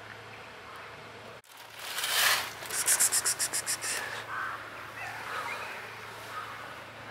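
A short rustling rush, then a quick rattle of about nine sharp ticks in a second, followed by faint animal calls.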